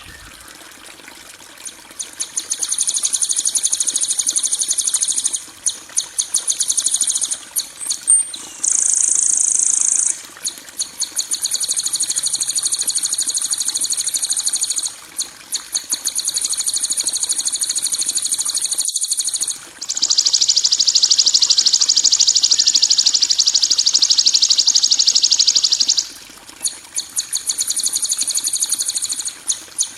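Songbird 'kasaran' tutoring calls: harsh, high, rapid buzzing rattles, each run lasting a few seconds with short breaks between them. Around two-thirds of the way through comes a longer, louder, slightly lower rattle.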